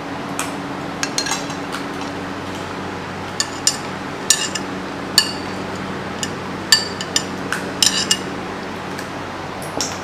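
Metal spoons clinking against ceramic plates and bowls, about a dozen sharp, ringing clinks at irregular intervals, over a steady low hum.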